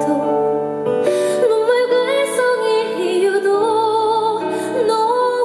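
A female vocalist singing a slow, sustained melody with vibrato over a soft instrumental accompaniment, performed live.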